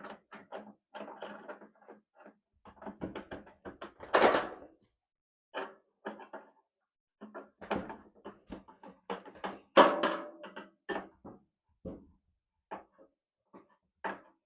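Irregular clattering, clicks and knocks from a telescoping dryer vent tube and its clamp being handled and fitted, with two louder knocks about four and ten seconds in.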